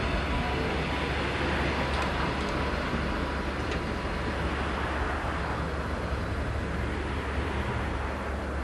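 Kumamoto City Tram car 101, a retro-style streetcar, pulling away along the track. Its running noise is steady and fades slowly as it draws away.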